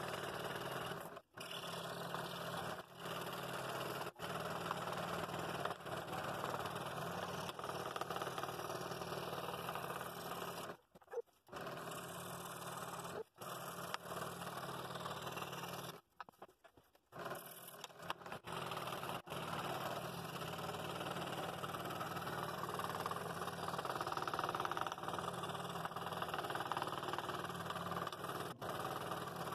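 Scroll saw running, its blade cutting through a double stack of half-inch aspen and walnut: a steady buzzing hum with the rasp of the cut. It breaks off briefly a few times.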